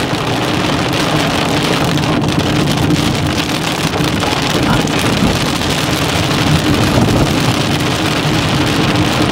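Inside a moving car: steady engine and road noise with a low hum, under a dense hiss of wind and rain against the windshield and body.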